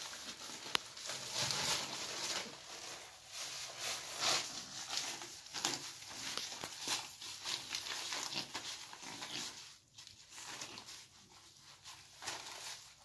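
Shih Tzu puppies playing tug with a cloth: rustling fabric and scuffling paws on artificial turf and a stone floor, with a sharp click about a second in. It gets quieter near the end.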